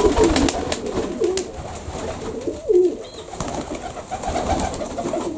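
Several Baku pigeons cooing in a loft, overlapping low warbling coos throughout. Sharp clicks and rustles in the first second and a half.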